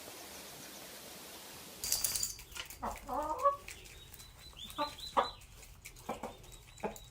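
A steady hiss, then from about two seconds in a chicken clucking and squawking in a string of short calls.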